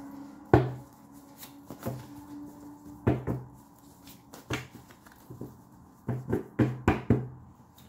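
A deck of tarot cards being handled and shuffled by hand: a run of sharp slaps and taps as the cards strike together and against the table, the loudest about half a second in and a quick cluster near the end.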